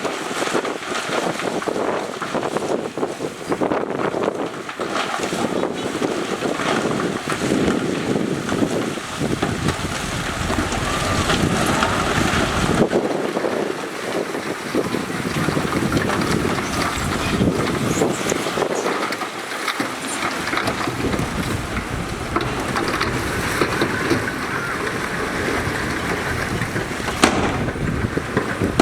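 Diesel engines of heavy earthmoving machinery running steadily, with wind buffeting the microphone. There is a single sharp click near the end.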